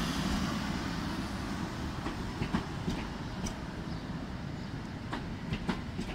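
Newag Impuls electric multiple unit running past, its wheels clacking over rail joints in a run of sharp clicks over a steady rumble, the sound easing as the train moves away.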